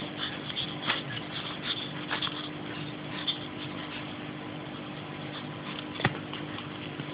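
A ferret scuffling and tugging at a wand toy on carpet: light, scattered taps and rustles, with one sharper knock about six seconds in, over a steady low hum.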